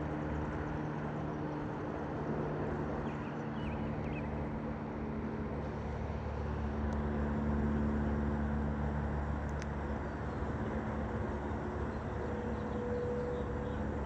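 Airplane engine drone, a steady low hum with a broad rushing noise, swelling slightly about halfway through.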